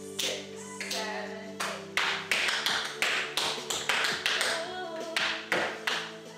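Tap shoes striking the floor in rapid clusters of sharp taps as a tap combination is danced, over music.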